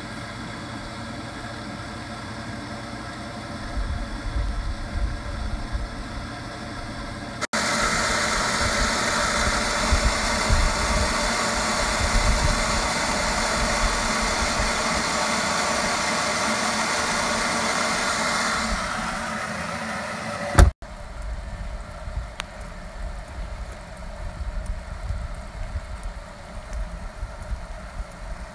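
Stainless-steel electric water pump running steadily with a constant motor hum. It is softer while the pump sits in its closed wooden box, and much louder and brighter close up from about seven seconds in. After a sharp click about twenty seconds in, the pump fades to a faint hum under low wind rumble.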